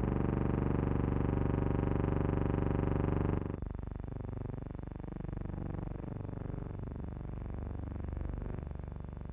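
Steady drone of aircraft engines in flight, heard from inside the cabin. About three and a half seconds in, it drops in level and its pitch begins to waver.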